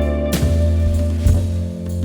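Background music: guitar and bass over a light drum beat.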